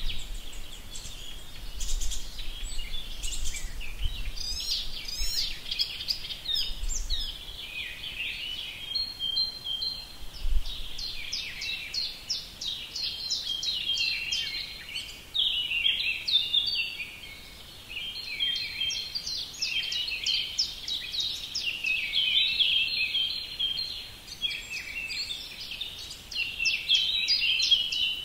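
Many small birds chirping and twittering without pause, a dense chorus of quick high chirps and trills.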